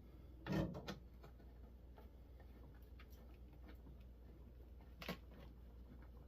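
Small knocks and clicks from handling tools and parts: a knock about half a second in, a smaller click just after, faint scattered ticks and a sharp clack near the end, over a low steady hum.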